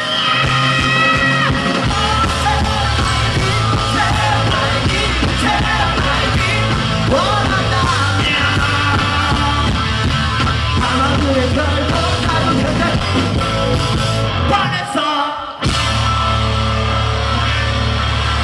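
Punk rock band playing loud, with shouted vocals over electric guitar, bass and drums. The bass and drums cut out for a moment about three-quarters of the way through, then the music comes back in.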